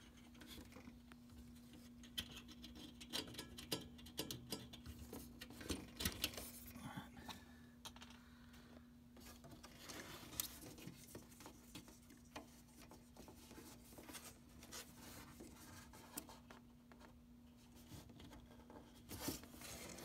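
Faint scratching, tapping and rubbing of hands handling a furnace pressure switch and its hose and wires, with small clicks scattered throughout, over a steady low hum.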